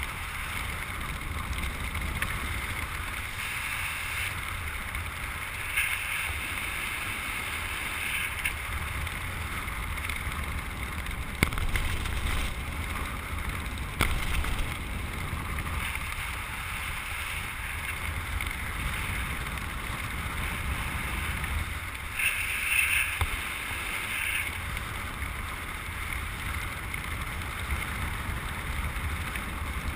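Wind rushing over the microphone during a descent under an open parachute canopy: a steady low rush with a few brief louder gusts.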